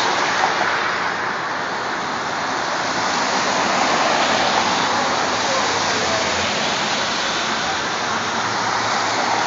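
Steady rushing hiss of street traffic on wet pavement, tyres swishing on the rain-soaked road, swelling gently as cars pass.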